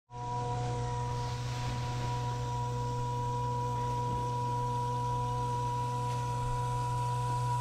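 Steady electrical hum with a steady, high whine above it, as from a small electric motor running without change.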